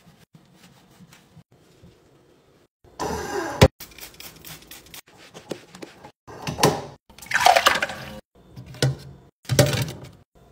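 Faint cloth wiping on a chrome faucet, then water from the kitchen tap splashing into a stainless steel sink in several short bursts that stop abruptly, with one sharp click about three and a half seconds in.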